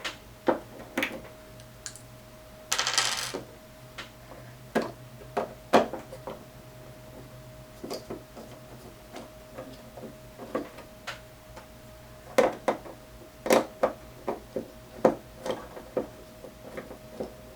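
Irregular clicks and knocks of small plastic and metal parts being handled as a Realistic 32-1105 mic mixer is taken apart by hand, knobs pulled off and screws removed, with a brief rasping scrape about three seconds in.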